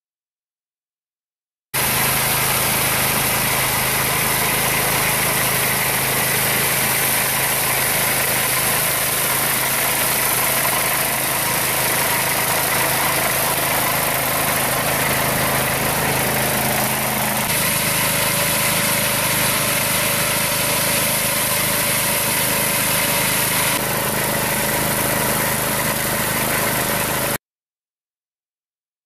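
Ride-on multipurpose tractor's 15.5 hp Briggs & Stratton four-stroke petrol engine running at a steady speed while its front double-drum mower cuts tall grass: a steady low engine hum under a bright high hiss. The sound starts and stops abruptly, and its tone shifts slightly twice.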